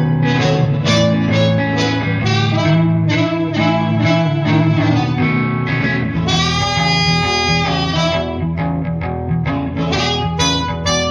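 Blues instrumental: a blues harmonica plays short phrases over guitar accompaniment, holding one long note about six seconds in.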